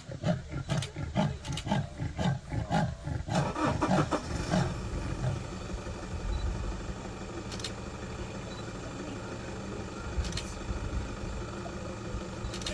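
Leopard giving its sawing call: a run of rough, rasping grunts, about three a second, that grows louder before stopping about four to five seconds in. After that a car engine idles steadily.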